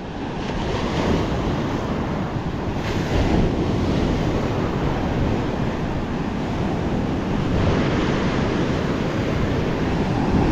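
Surf breaking and washing up a sandy beach in a steady rush, with wind buffeting the microphone.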